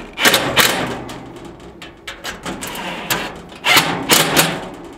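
Cordless drill driving fasteners into the grill's metal frame in short bursts: two just after the start and three close together near the end, with knocks of metal between.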